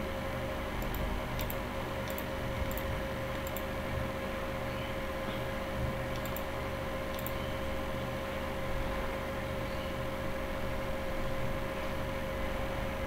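Steady background hum with a constant pitched tone, picked up by a computer microphone, with a few faint clicks of a computer mouse scattered through the first seven seconds.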